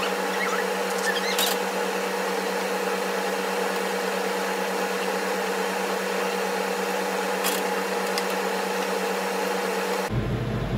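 A steady machine-like hum with hiss, with two light clicks of a cooking utensil against a frying pan as pasta is stirred, about a second and a half in and again near the end.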